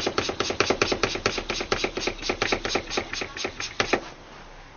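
Hand siphon pump worked quickly, its strokes making a fast run of clicks about five or six a second that stops about four seconds in. It is pumping cigar smoke into the engine's air intake for a smoke test for intake air leaks.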